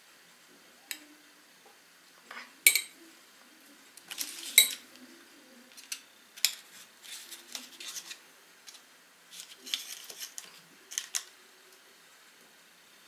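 A metal teaspoon clinking and scraping against a glass cup and on ice cream as scoops are moved into coffee. The clinks are irregular and sharp, the loudest two about three and five seconds in.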